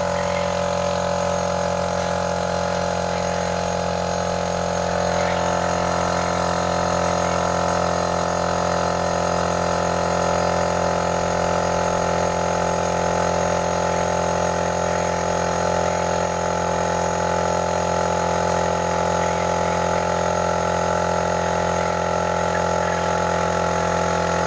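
A machine's engine running steadily at an even speed, giving a snoring 'ngok ngok' sound.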